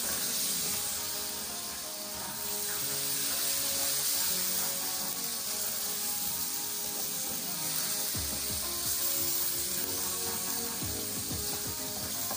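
Diced potatoes, onion and tomatoes sizzling in a kadai while a spatula stirs them, with scrapes and knocks of the spatula in the pan from about two-thirds of the way in. Background music plays throughout.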